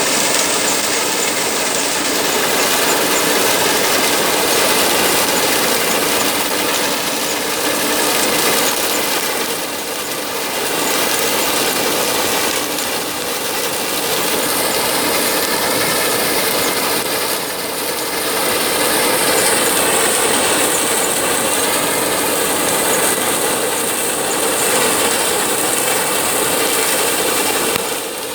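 KS track-type combine harvester running under load while cutting mustard: engine and machinery going steadily, with a couple of brief dips in loudness.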